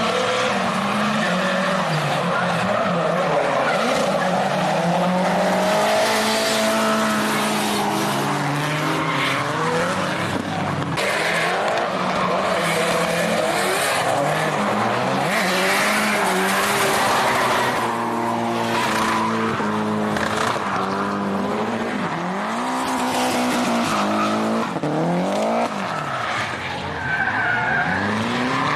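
Drift cars sliding through corners, their engines revving up and down over and over, with tyres squealing and skidding on the tarmac.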